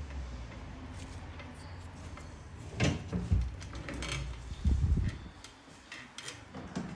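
Handling noise during a toenail treatment: a few scattered knocks and clicks, the loudest about three and five seconds in.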